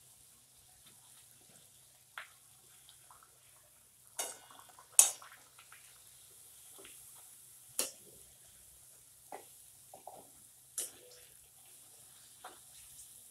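Puris deep-frying in hot oil with a faint steady sizzle, and a perforated metal slotted spoon clinking against the metal kadhai about eight times, loudest about five seconds in.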